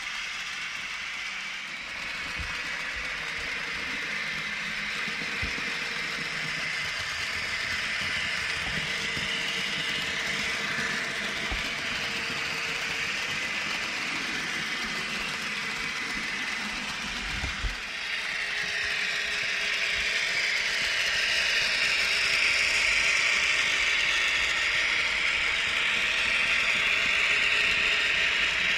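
An H0-scale model of an ÖBB class 2068 diesel locomotive, hauling hopper wagons along the layout track, with a steady mechanical rattle of motor, gears and wheels on rail. A single knock about two-thirds of the way through. The sound grows louder as the train comes closer near the end.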